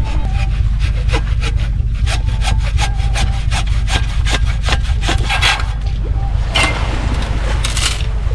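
Wood being worked by hand in quick strokes, about four a second, followed near the end by two longer scraping strokes. A steady low wind rumble on the microphone runs underneath.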